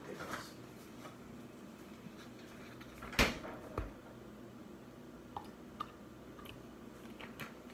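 Handling knocks on a granite kitchen counter as a milk jug is picked up and poured into a ceramic mug: one sharp knock about three seconds in, a smaller one just after, then a few light clicks.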